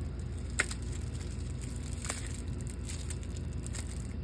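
Shrink-wrapped card decks being handled and picked up: a few short clicks and plastic crinkles, the sharpest about half a second in, over a steady low background hum.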